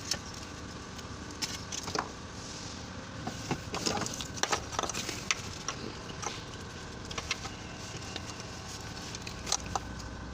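Scattered clicks and light knocks of hand work on the fuel filter and its fittings, irregular and in small clusters, over a steady low hum.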